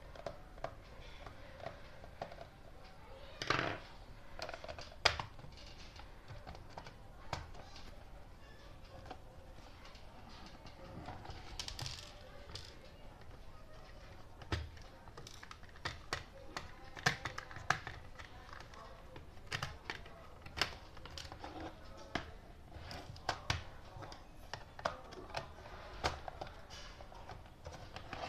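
Irregular clicks and light knocks of hard plastic as a portable DVD player's case is handled, turned over and set down on a table, with a few louder knocks among them.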